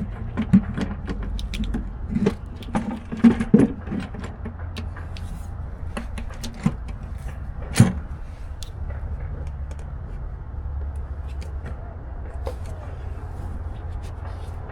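Metal clinks and knocks as a valve cover is handled and set down onto a Detroit Series 60 engine, with a cluster of them in the first four seconds and one loud knock about eight seconds in, over a steady low hum.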